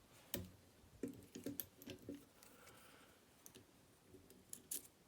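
Faint, light metallic clicks and taps of a lock pick pushing at the sliders of a Fontaine 7-slider push/pump lock under tension. A run of clicks comes in the first two seconds, then a pause, then a few more near the end.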